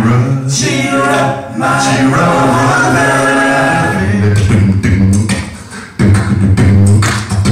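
Male a cappella group singing in harmony with a beatboxer's vocal percussion. About four seconds in, the held chords give way to sharp beatbox hits over a low sung bass line, which fades briefly and then comes back loud.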